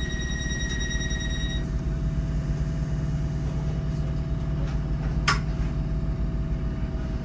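Inside a Tyne and Wear Metrocar standing at a platform: a steady high electronic tone stops about a second and a half in, leaving the car's low, even hum. About five seconds in there is a single sharp click.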